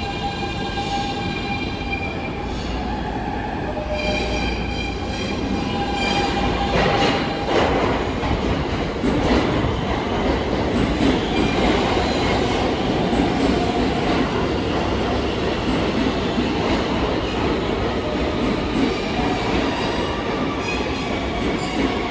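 New York City subway train running along the track, with high steady wheel-squeal tones over the first few seconds, then a louder, rougher rumble and rattle of wheels on rail from about seven seconds in.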